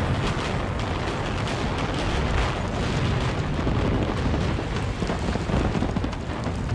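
Multi-storey brick building collapsing in a controlled implosion: a continuous deep rumble of falling masonry, with many sharp cracks and crackles running through it.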